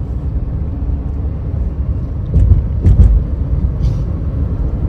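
Low road and engine rumble inside the cabin of a moving Renault Duster, with a few sharp knocks around the middle.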